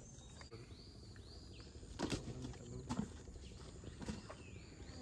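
A bird calling a quick series of repeated arched, high notes, about three a second, once near the start and again near the end, over jungle ambience. A few sharp knocks come in the middle.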